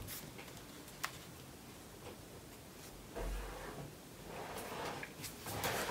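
Faint desk-drawing sounds: a colored pencil and sketchbook paper being handled. A light click comes about a second in and a soft bump a little after three seconds, then a rustle near the end as the paper or notebook is moved.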